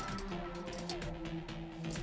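Background music: held notes that step from pitch to pitch, with light percussive ticks.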